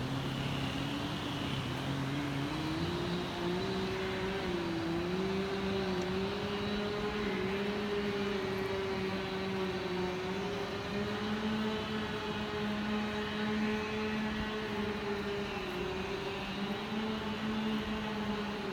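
An engine running steadily. Its pitch climbs over the first four seconds or so, then holds with small wobbles, and a lower second tone runs beneath it.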